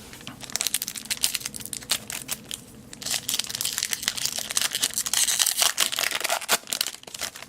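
Baseball card pack wrapper crinkling and being torn open, a dense run of crackles that grows thicker and louder in the middle.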